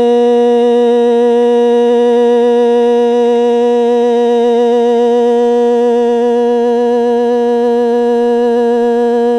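A singer holding one long, steady note of kwv txhiaj (Hmong sung poetry), with a slight waver in the pitch.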